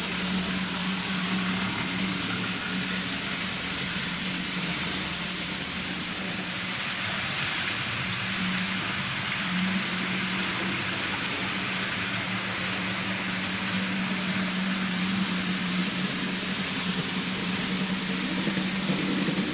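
N gauge model trains running on the layout: a steady hiss and rumble of wheels on the track, with a steady hum underneath and faint ticks.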